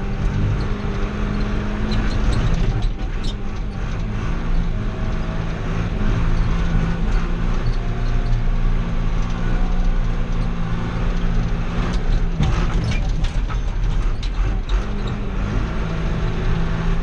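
Old John Deere loader tractor's engine running steadily while driving, heard from inside the cab, with the cab and loader rattling and creaking over the rough dirt track; the rattling comes in a thicker burst about twelve seconds in.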